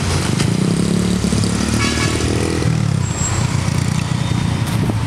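Road vehicle engines running steadily. A motorcycle engine passes close, its pitch shifting during the first few seconds before the sound settles into a lower, steady engine drone.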